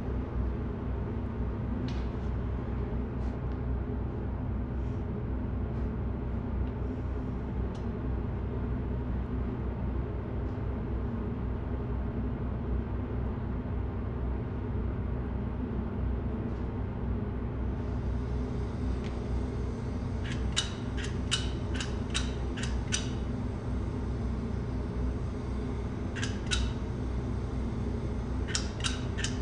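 A steady low rumbling drone, with runs of sharp clicks: about six in quick succession two-thirds of the way through, a pair a few seconds later, and another quick run near the end.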